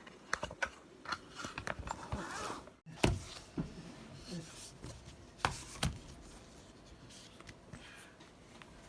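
Irregular small clicks, taps and knocks of hands handling hard items, with the loudest knocks about three seconds in and twice more between five and six seconds in.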